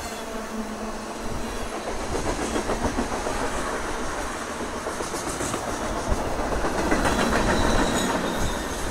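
Freight cars, mostly tank cars, rolling steadily past close by: a continuous rumble of steel wheels on rail with a running clickety-clack of wheel clicks, swelling louder for a second or so near the end.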